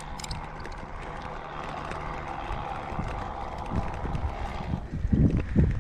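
Mountain bike rolling up a concrete road, heard from a chest-mounted camera: a steady rolling rumble with a faint hum. About five seconds in, loud, uneven low buffeting hits the microphone.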